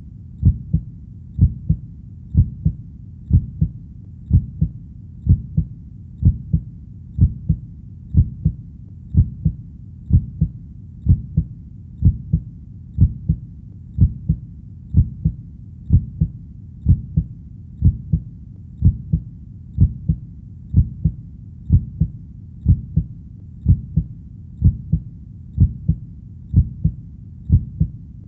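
Heartbeat sound: steady, even double thumps (lub-dub) at about one beat a second, deep and muffled, over a faint low hiss.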